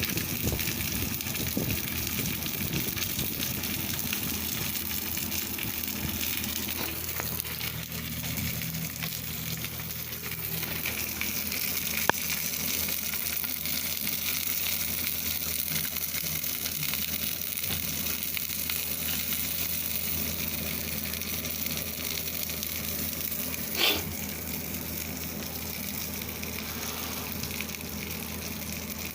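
Steady hissing, sizzle-like noise over a low hum, with a single sharp click about twelve seconds in and a brief higher-pitched squeak a few seconds before the end.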